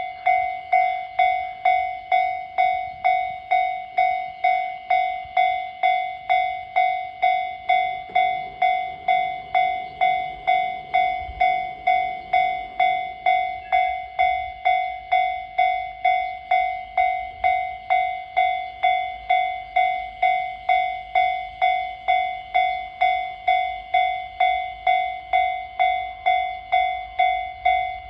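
Japanese railway level-crossing warning bell ringing steadily, about two strokes a second, each strike ringing with the same bright tone and fading before the next. The ringing signals that a train is approaching the crossing.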